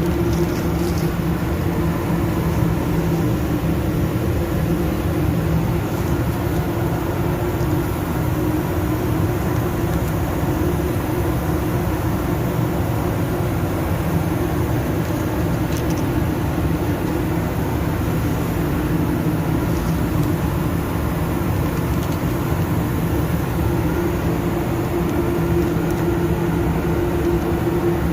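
Steady machine hum from a running motor, even in level, with a constant low drone.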